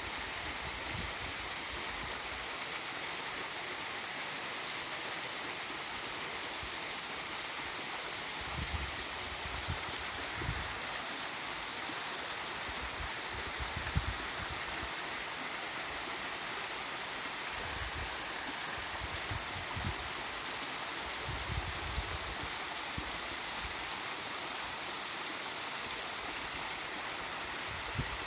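Waterfall and river rushing in a steady hiss, with scattered low bumps, the loudest about halfway through.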